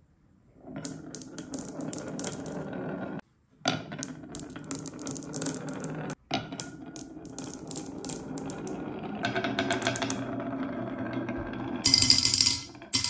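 Glass marbles rolling down a wooden wave-shaped slope: a steady rolling rumble with many small clicks as they knock against each other. Near the end comes a loud burst of clinking as they spill off the end into a toy trailer.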